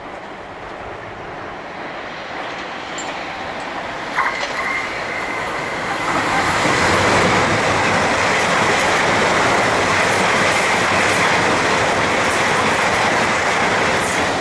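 South Western Railway electric multiple unit passing through at speed: a rush of wheel and rail noise that builds up and is loud from about six seconds in, with a steady high whine held over it from about four seconds in.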